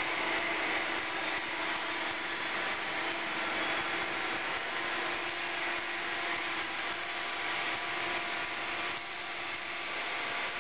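CNC plate-rolling machine running steadily in automatic, its rolls turning and bending a stainless steel sheet, with a constant machine hum over an even mechanical whir.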